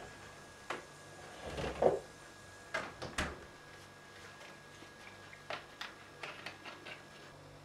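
Household handling sounds: a few knocks and a louder clunk in the first three seconds as a refrigerator door is opened and shut and a plastic cola bottle is taken out, then a run of small clicks near the end as the bottle's screw cap is twisted.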